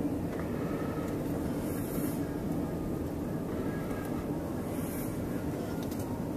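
Steady engine and road noise of a Chevy Cobalt being driven, heard from inside the cabin as a continuous low rumble.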